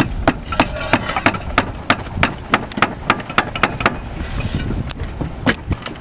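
Hammer blows while fastening a ridge cap tile on a tile roof: a quick run of sharp strikes, about three to four a second, then a pause and two more blows near the end.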